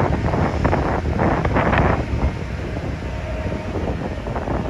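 Wind buffeting the microphone in gusts, heavier in the first two seconds, over the steady low rumble of slow-moving BNSF diesel freight locomotives.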